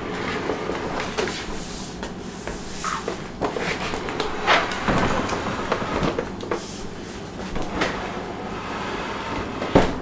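Whirlpool side-by-side refrigerator being pushed back into place, its rollers rumbling over the floor with scattered knocks and one sharp knock near the end.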